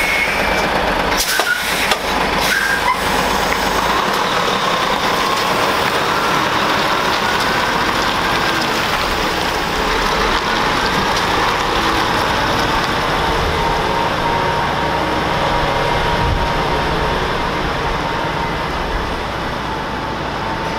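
Diesel tractor unit hauling a flatbed semi-trailer, its engine running as the rig pulls away and drives off. A few short, sharp sounds come about one to three seconds in.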